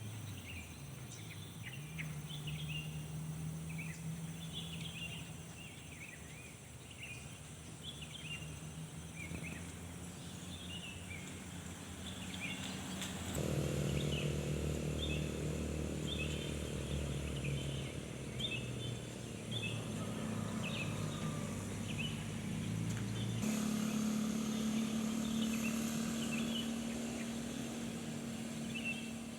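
Small birds chirping and calling, many short chirps a second, over a steady low hum that shifts abruptly about halfway through and again near the end.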